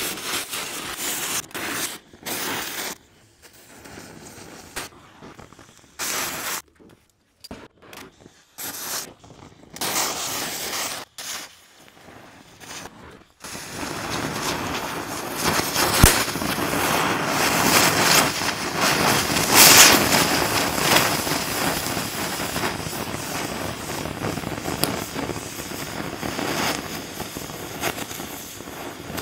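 Victor oxy-acetylene cutting torch cutting through the steel along the bottom of a shipping container wall: a hiss of flame and cutting jet. It comes in short broken spells at first, runs steadily from a bit before halfway, and gives one sharp pop a couple of seconds after it steadies.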